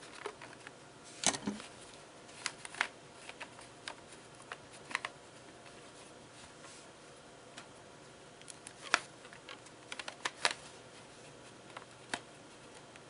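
Rubber bands being stretched over and fastened around two felt insoles with fleece sandwiched between them: scattered short clicks and handling noises at an irregular pace, the sharpest about nine seconds in.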